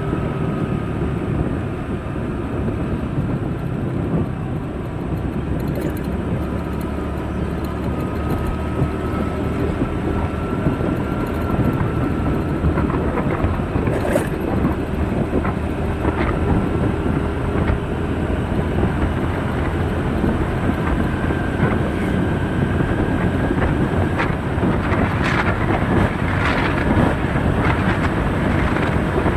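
Steady rumble of a moving vehicle with wind noise, a few faint drifting tones running through it and scattered clicks and knocks, more of them near the end.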